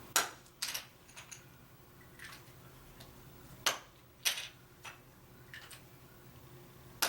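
Bed-frame caster wheels and their plastic covers clicking and clacking as they are handled and pressed together: four sharp clicks and several lighter taps, irregularly spaced.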